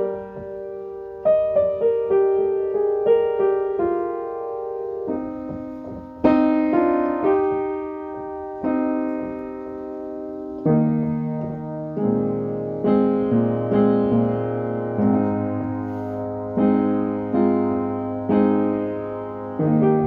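Slow, gentle piano music: single notes and chords struck every half second to two seconds, each ringing and fading, with a longer held chord a few seconds in.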